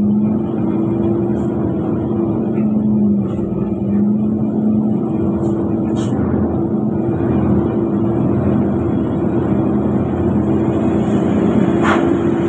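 Engine of a truck running steadily, heard from inside the cab as a constant drone with road rumble. A short sharp click comes about halfway through and another near the end.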